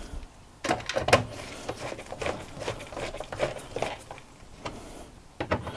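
Phillips screwdriver driving screws into an RV converter's fuse panel: a run of small, irregular clicks and scrapes.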